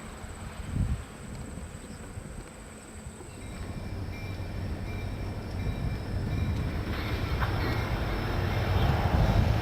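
Freight train approaching: diesel locomotive engines rumble with a steady low hum, growing steadily louder through the second half. There is a brief thump about a second in.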